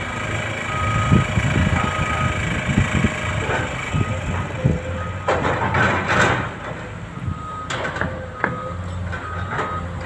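Heavy construction machinery running, a diesel excavator and trucks, with a backup alarm beeping on and off in short repeated beeps. A loud rushing burst comes about halfway through, and a couple of sharp metal clanks follow near the end.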